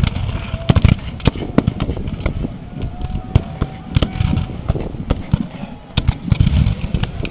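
Reenactors' black-powder muskets firing across the field: many scattered, irregular shots, some sharp and close, others duller and distant.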